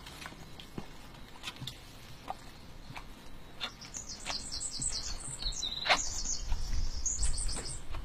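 A small songbird chirps a quick run of high notes starting about halfway through, over scattered soft clicks and rustles of straw from the mare and newborn foal moving in the bedding. A low rumble swells in the second half and is the loudest sound near the end.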